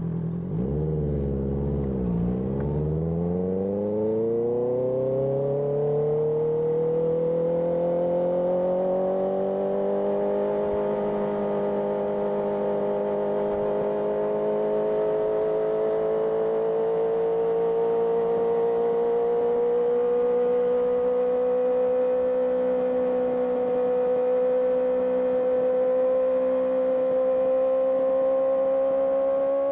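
Honda CBR650R's inline-four engine through an IXIL IXRACE aftermarket exhaust, heard on the move. After a couple of quick rises and dips in the engine note, it pulls up smoothly in one gear for several seconds, then settles into a steady cruise that creeps slightly higher near the end.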